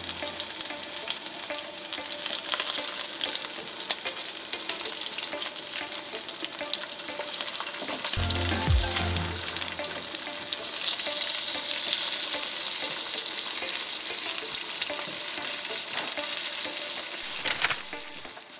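Salmon fillets sizzling and crackling in hot oil in a nonstick frying pan, with a low knock about eight seconds in. The sizzle drops away near the end.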